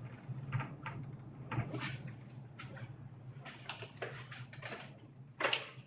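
Faint clicks and scrapes of hand work on a bicycle's rear derailleur as its adjustment screws are turned, over a low steady hum. A louder, short rasping noise comes about five and a half seconds in.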